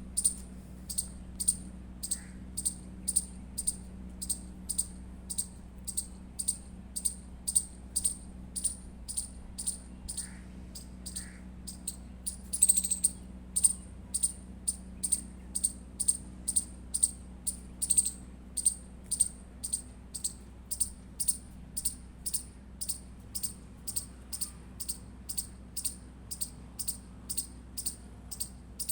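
Indian palm squirrel chirping: a long series of short, sharp, high-pitched chips, about two a second, with a louder flurry about halfway through. A faint steady low hum runs underneath.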